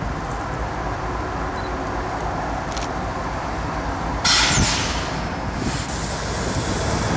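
Two GE AC6000CW diesel-electric locomotives running light at low speed, a steady low diesel rumble. A sudden loud hiss of air cuts in about four seconds in and dies away within half a second.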